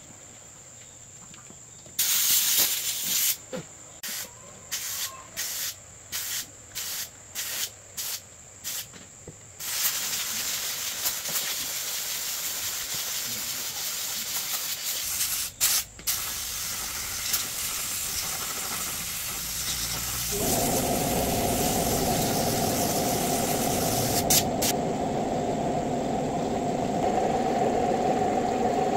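A pressurised jet hisses, first in one longer blast and then in a string of short bursts about every half second, then runs on continuously. About twenty seconds in, a motor starts and runs steadily with a humming tone under the hiss.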